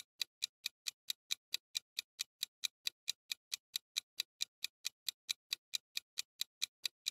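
Countdown-timer sound effect of quick, even clock ticks, about four to five a second, marking the time left to answer a quiz question.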